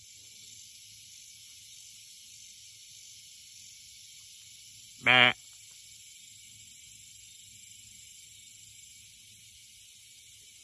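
Steady high hiss of an insect chorus with a faint low rumble, broken about five seconds in by one short, loud pitched sound.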